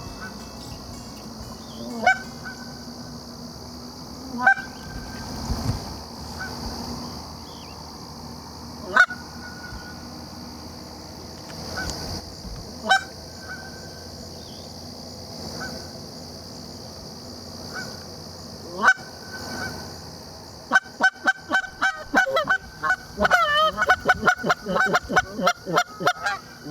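Goose honking and a hunter's goose call: single honks a few seconds apart, then a fast run of honks and clucks over the last six seconds or so, as a goose is called in to the decoys and answers back.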